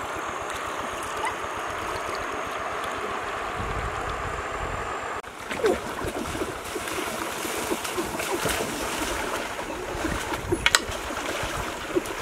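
River water sloshing and splashing around a person wading through it, steady, with scattered small splashes in the second half.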